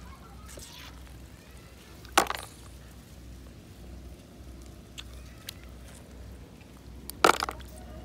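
Snail shells dropping into a plastic basin and clicking against the shells already in it: two sharp clicks, about two seconds in and near the end, with a few fainter ticks between.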